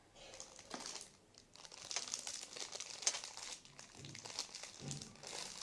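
Crinkly wrapping being handled as jewellery is sorted, in irregular rustling crackles.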